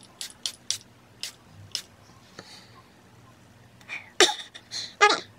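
Boscia White Charcoal Mattifying Setting Spray's pump bottle spritzed about six times in quick succession in the first two seconds, each a short sharp hiss of fine mist. From about four seconds in, three louder breathy puffs blown out through pursed lips.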